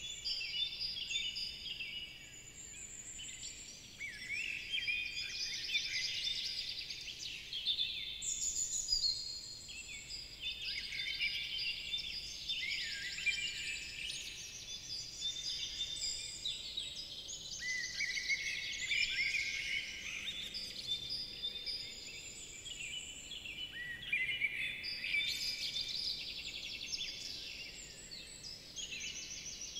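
Many songbirds singing at once: a dense, overlapping chorus of high chirps, trills and whistles that never stops, easing a little about two to four seconds in.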